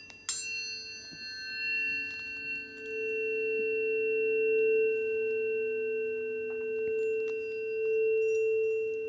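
Planetary tuning forks: one is struck with a bright metallic clink just after the start while another is already ringing. Both then sound on as two steady pure tones, one high and one lower, that slowly swell and ebb.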